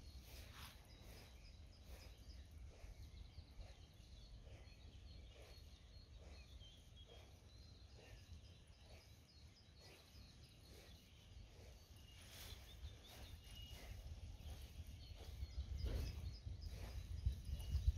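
Faint lakeside ambience: distant birds chirping over a low rumble, with a few soft knocks that grow louder near the end.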